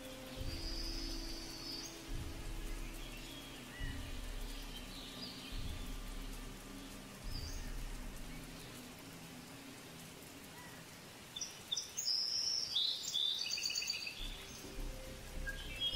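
Outdoor nature ambience: scattered short high bird chirps, busiest and loudest about twelve to fourteen seconds in, over a low steady hum and soft dull thuds every second or two in the first half.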